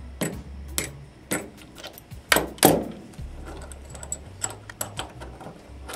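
Sharp metal clicks and clacks from a torque wrench and a small bench vise being handled. A few spaced clicks come first, the two loudest knocks about two and a half seconds in, then a run of lighter, quick ticks.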